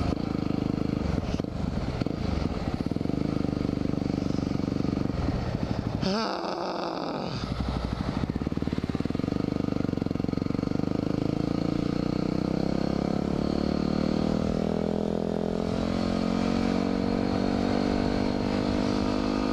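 2010 Yamaha WR250R's single-cylinder engine running under way. Its note breaks briefly about six seconds in, then rises steadily in pitch for several seconds as the bike accelerates, and levels off near the end.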